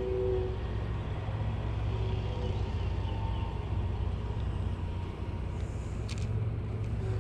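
Steady low rumble, with a few faint clicks about six seconds in.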